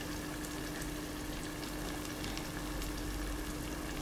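Shakshuka (tomato sauce with eggs) simmering in a pan over a gas burner: a steady sizzle with faint scattered pops. A steady low hum runs underneath.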